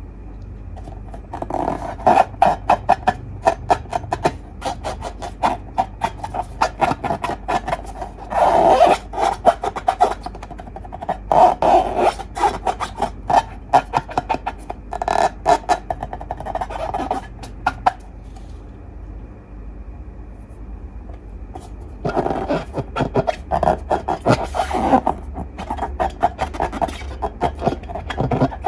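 Slime being squished and pressed by hand, giving dense runs of small sticky clicks and crackles in bursts, with a lull of a few seconds about two-thirds of the way through.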